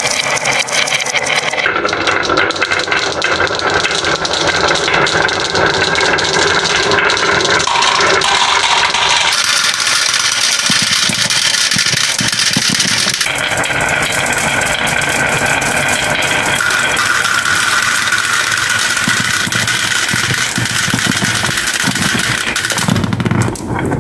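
Dozens of glass marbles rolling and clattering down a carved wooden wave track, a dense continuous rattle of glass clicking against glass and wood. Near the end the rattle thins and a lower rumble takes over as marbles tumble off the track.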